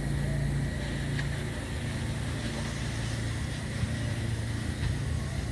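A steady low engine-like hum over a haze of outdoor background noise.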